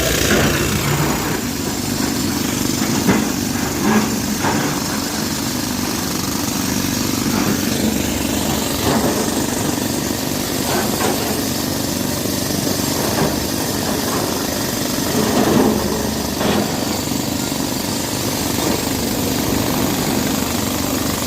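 Diesel engine of heavy construction machinery running steadily, with a few short knocks or clanks scattered through.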